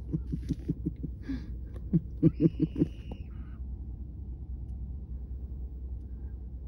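Children's wordless laughing and whooping in short rhythmic bursts, with a brief high squeal about two and a half seconds in. After about three seconds only a low steady rumble remains.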